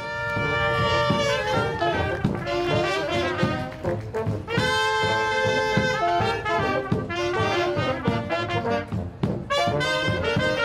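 Live street band of saxophones, trumpet, low brass horns and a drum playing a lively tune, starting abruptly, with the drum beating a steady rhythm under the horns.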